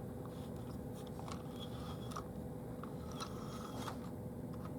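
Faint small clicks and taps of a model train being handled: the locomotive is set onto the track and its coaches coupled on, with a steady low hum underneath.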